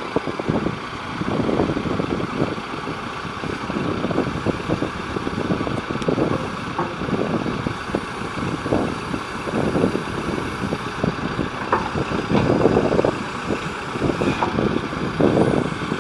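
John Deere 310J backhoe loader's diesel engine running, with uneven swells in loudness every second or two.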